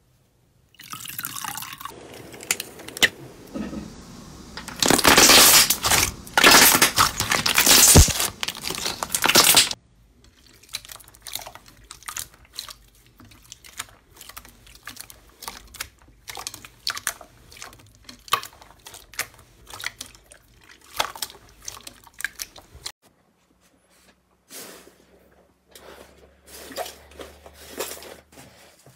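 Slime being squished and handled: wet, sticky squelching and popping, loud and dense for the first ten seconds or so, then softer crackling clicks. It cuts to another, quieter slime clip a little before the end.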